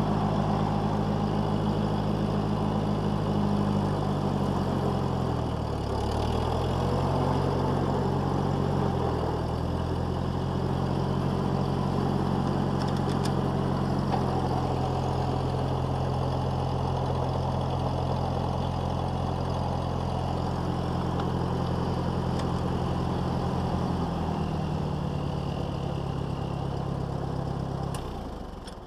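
Old Ford tractor's engine running as it is driven. Its pitch sags and picks up again about five and nine seconds in, drops lower about twenty-four seconds in, and the engine cuts off near the end.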